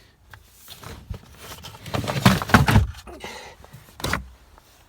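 Clunks, knocks and scraping as items are shifted in a storage box and a Homelite chainsaw is lifted out, loudest about two to three seconds in.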